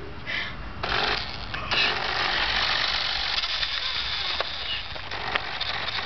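Remote-control toy car's small electric motor and gearbox whirring, with the tyres rattling over rough asphalt as it drives. The whirr starts about a second in and gets louder shortly after.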